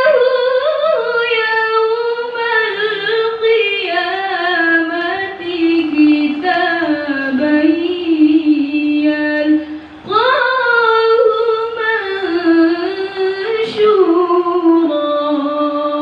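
A woman's voice reciting the Quran in melodic tilawah style, chanting long ornamented phrases. Each phrase starts high and sinks slowly in pitch, with a breath about ten seconds in.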